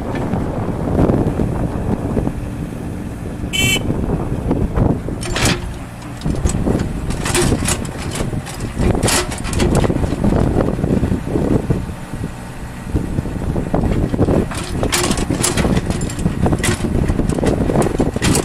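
IHI 45NX mini-excavator's diesel engine running, with scattered sharp knocks. A brief high-pitched squeal comes about four seconds in.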